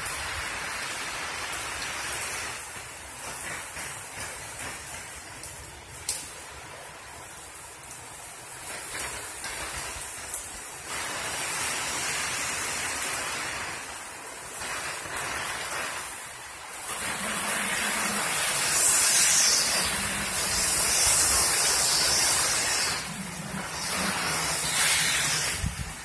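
Storm wind gusting and heavy rain driving against a screened pool enclosure, a steady hiss that rises and falls with the gusts. It peaks in a long, louder gust in the second half, with a low hum along with it.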